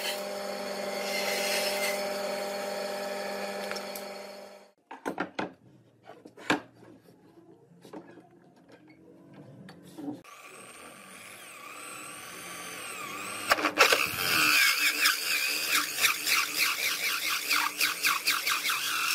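A band saw cuts a pine board, then stops abruptly about five seconds in. A few knocks of wood being handled follow. From about ten seconds an electric drill with a sanding disc starts up and sands the pine board, getting louder, with a rasping, pulsing grind toward the end.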